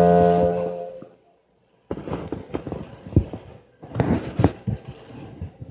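Electronic home organ sounding a chord that fades out about a second in. After a short silence come a series of irregular knocks and clatter.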